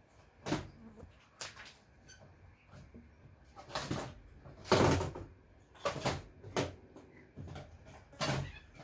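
Irregular knocks and clunks of hard parts being handled while stripping a scrapped electronics unit, about seven separate strikes, the loudest about five seconds in.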